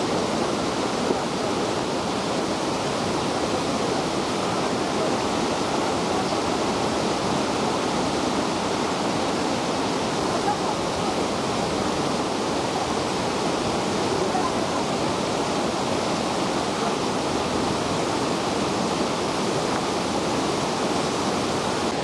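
Waterfall pouring down a rock face into a pool: a steady, unbroken rush of water.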